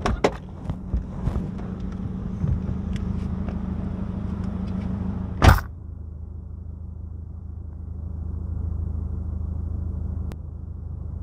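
Nissan Sentra's SR20VE engine idling steadily, with several clicks and knocks in the first few seconds and a loud car door slam about halfway through, after which the idle sounds duller and muffled.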